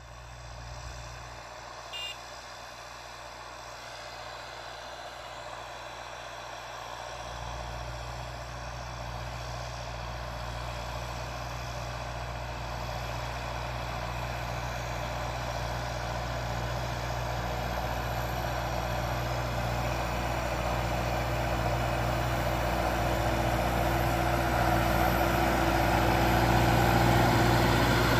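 John Deere 6120B tractor engine running steadily under load while pulling a Lemken Smaragd cultivator, a low hum that grows steadily louder as the tractor approaches and passes close.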